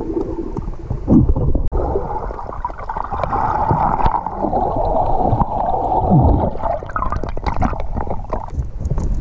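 Water sound picked up by a camera held underwater: muffled sloshing and gurgling bubbles, with a denser bubbling stretch from about two to seven seconds in.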